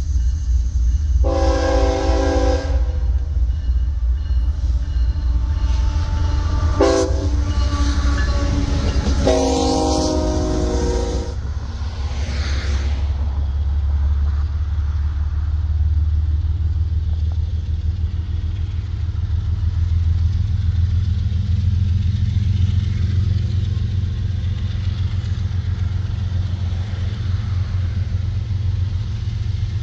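Freight diesel locomotive's air horn sounding three times in the first dozen seconds: a long blast, a brief one, then another long blast. The heavy low rumble of the working diesel engines runs under the horn and carries on steadily as the locomotives approach.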